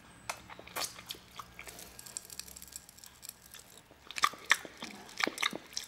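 Mouth sounds of sucking a lollipop coated in popping candy: faint, scattered small wet clicks and crackles, coming thicker about four seconds in.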